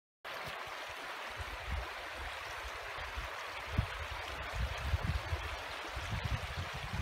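Shallow stony moorland stream running steadily over rocks, cutting in suddenly just after the start. Low gusts of wind buffet the microphone, growing stronger near the end.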